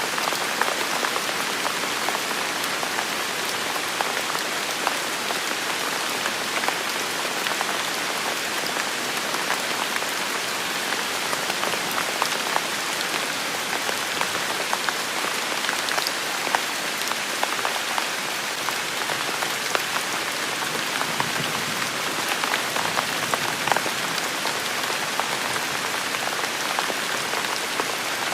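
Steady rain falling, with many sharp ticks of single drops hitting hard surfaces throughout.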